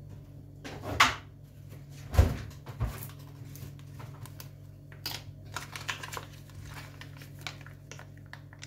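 Kitchen handling sounds: a few knocks and thuds, the loudest about one and two seconds in, then a run of small clicks and plastic crinkles as a soft plastic mayonnaise pouch is fetched and its screw cap opened. A steady low hum runs underneath.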